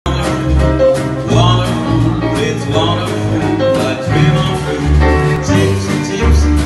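Live swing band playing an instrumental intro, with piano, drums and saxophones over a steady bass line.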